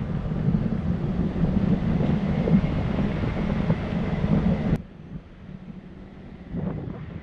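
Driving noise from a vehicle on a winding mountain road, picked up by a camera mounted on the outside of the car: a loud, dense low rumble of wind buffeting, tyres and engine. About five seconds in it drops away abruptly to a much quieter steady hum.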